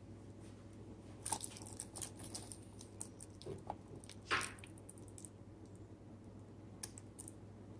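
Handling noise of a wristwatch with a metal bracelet being turned in the hand: faint scattered clicks and rustles, the loudest a sharp click about halfway through, over a steady low hum.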